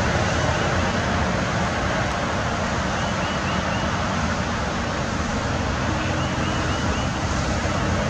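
Steady rushing outdoor background noise. Twice, a bird faintly calls a quick run of about four short chirps, once about three seconds in and again about six seconds in.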